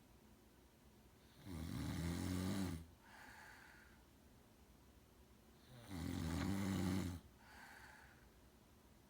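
Loud, heavy snoring: two long, low, rasping snores about four and a half seconds apart, each followed by a softer breath.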